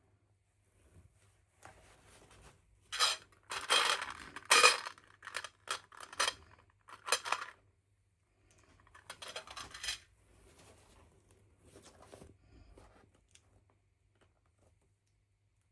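Small hard plastic toy pieces and packaging being handled during an unboxing: a run of short clattering, crinkling bursts from about three to seven and a half seconds in, then another short spell about nine seconds in.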